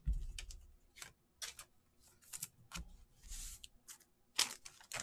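Trading cards and plastic penny sleeves and top loaders being handled on a table: scattered light clicks and short plastic rustles, with a soft thump at the start and another near the middle.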